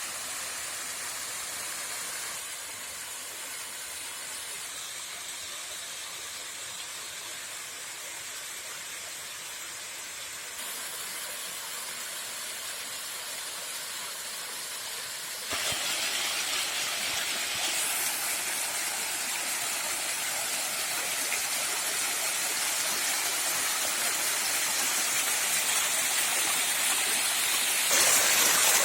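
Rushing water of a rain-fed waterfall: a steady hiss of falling water with no other sound over it, jumping louder in steps at a few cuts, most sharply about halfway through and again near the end.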